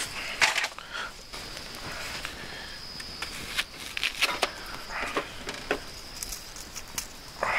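A wooden-handled folding knife cutting raw meat on a wooden cutting board, then cutting through an onion: a scatter of short, irregular taps and crisp cuts.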